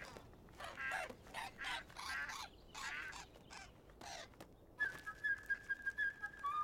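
A bird and a duck squawking at each other in a string of short, harsh calls. About five seconds in, a flute starts playing quick high notes.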